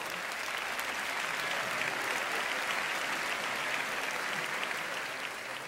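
Audience applauding, a steady wash of many hands clapping that dies down near the end.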